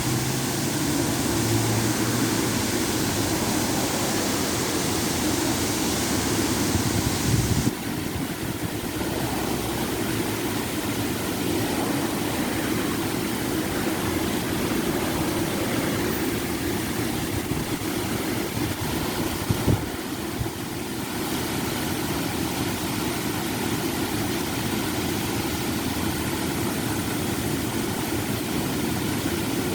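Water of a small river waterfall pouring steadily into the river: a continuous rushing roar. About eight seconds in, the brighter hiss drops away suddenly and the lower rush carries on.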